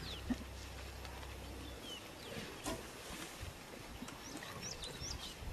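Lions feeding on a fresh carcass, faint and intermittent, with a few soft knocks and short high bird chirps. A low steady hum stops about two seconds in.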